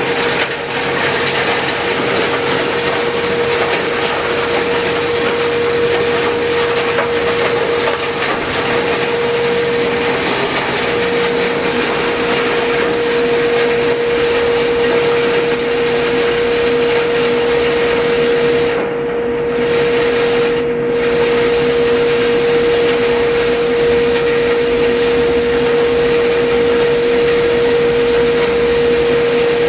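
Pagani 2550 plastic granulator for polyethylene running with its cyclone conveying blower: a steady whirring noise with a constant hum. The high hiss dips briefly twice about two-thirds of the way through.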